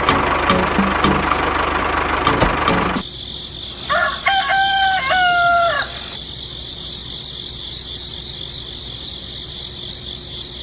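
An engine-like mechanical running noise that cuts off abruptly about three seconds in, followed by a rooster crowing once, a stepped call lasting about two seconds, over a steady background hiss.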